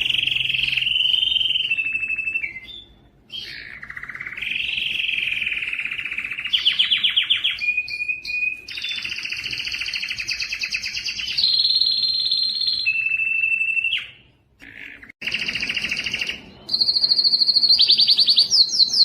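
Domestic canary singing a long song of rolling trills and fast repeated notes, changing phrase every second or two, with brief pauses near 3 s and near 14 s.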